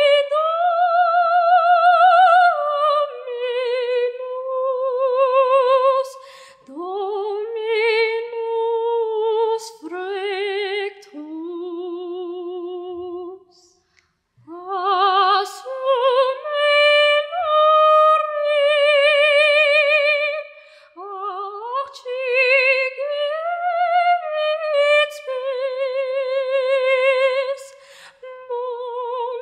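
A girl singing solo and unaccompanied in a high voice with strong vibrato. She sings long held phrases with short breaths between them and dips almost to silence about fourteen seconds in.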